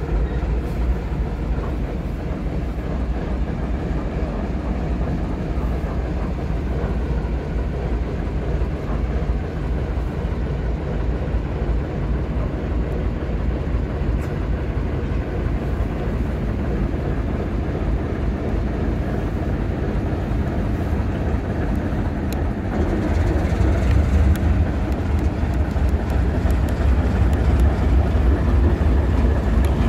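Two diesel locomotives, a TEM2 leading, pulling a freight train away at low speed: a steady low engine drone that gets louder about three-quarters of the way through as the lead locomotive draws close.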